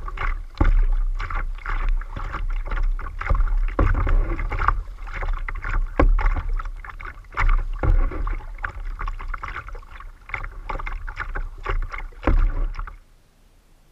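Kayak paddle strokes: the double-bladed paddle dipping and splashing on alternate sides, with water rushing and slapping against the plastic hull over a steady low rumble. The sound cuts off abruptly near the end.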